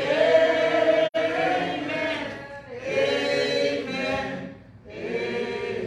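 Church congregation and choir singing together without accompaniment, in long held phrases, three of them. The sound cuts out for an instant about a second in.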